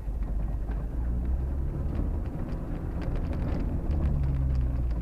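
Mitsubishi Pajero rally car's engine running at low revs, heard from inside the cabin, with scattered light clicks and rattles.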